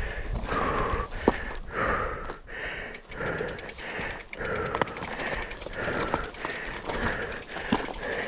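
A cyclist breathing hard and rhythmically, about two breaths a second, with a fast, even ticking underneath from about three seconds in and a couple of sharp knocks.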